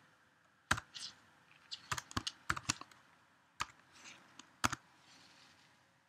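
Computer keyboard keys clicking as text is typed: about ten separate keystrokes in irregular clusters, ending about five seconds in.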